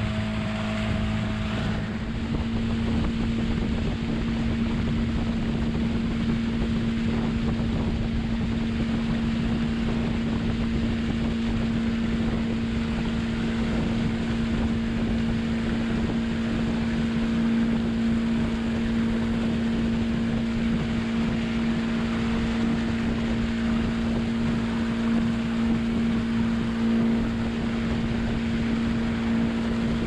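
Motor of a small passenger boat running steadily at cruising speed, a constant hum, with wind buffeting the microphone and water rushing from the wake.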